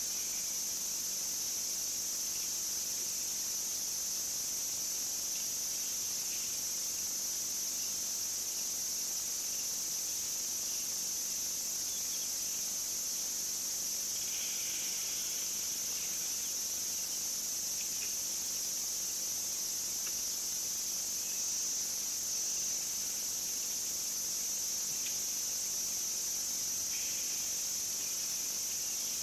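Steady, high-pitched chorus of insects droning without a break, with a few brief calls over it about halfway through and near the end.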